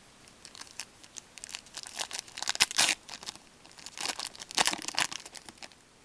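A foil trading-card pack being torn open and its wrapper crinkled, in two bursts of crackling with the loudest tear a little under three seconds in.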